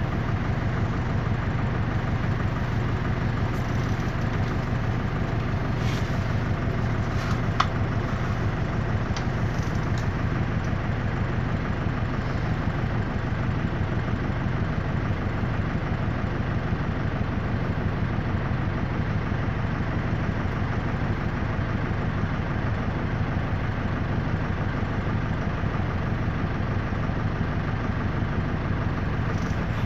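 Air-cooled Deutz F4L912 four-cylinder diesel of an Otokar M-2000 minibus idling steadily, heard from inside the cab. A single short click comes about seven and a half seconds in.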